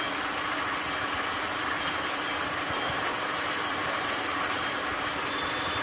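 Warning bell of an AŽD 71 level-crossing signal, the classic electromechanical type, ringing steadily without a break: the crossing is activated for an approaching train.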